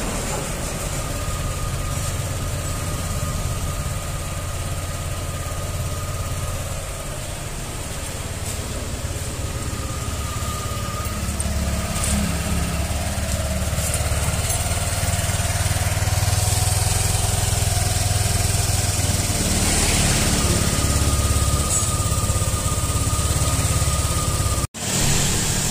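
Yamaha Aerox 155's single-cylinder, liquid-cooled engine idling steadily and smoothly while its radiator is being filled with coolant.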